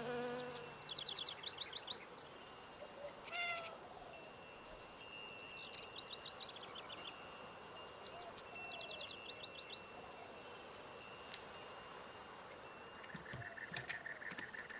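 Small birds calling in quiet outdoor ambience: repeated quick trills of falling chirps every second or two, over a thin, steady high-pitched tone.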